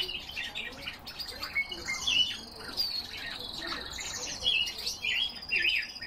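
Several cage birds chirping and singing together: quick high chirps and warbled phrases over a long, fast, even trill that runs for about three seconds in the middle.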